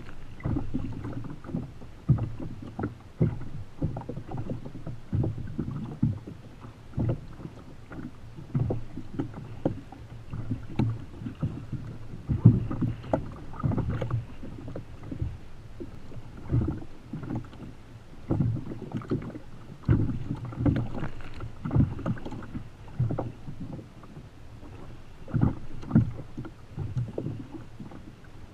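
Choppy sea water slapping and sloshing against the hull of a sit-on-top fishing kayak, in irregular splashes and knocks.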